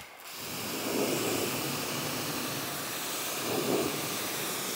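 BigBoi Washr Pro electric pressure washer running and spraying a rinse jet through a 4.5 orifice nozzle, rinsing foam off a car panel. A steady hiss of water spray that builds up over the first second and then holds.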